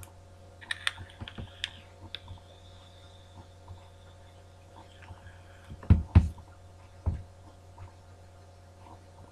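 Totally Wicked Tornado V3 e-cigarette being drawn on: a faint steady hiss with light crackles from the heating coil for about five seconds, followed by a few low breath puffs a little after halfway.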